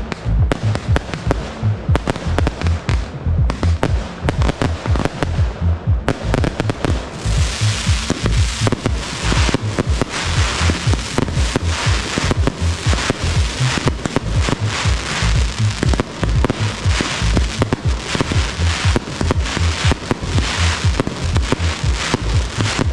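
Aerial fireworks bursting in rapid succession, with sharp bangs and deep thuds. From about seven seconds in, a dense crackling from glittering crackle stars takes over.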